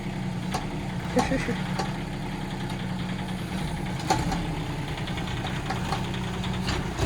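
Kubota K008-3 mini excavator's three-cylinder diesel running steadily, with a few sharp knocks from the working machine, one about a second in and another about four seconds in.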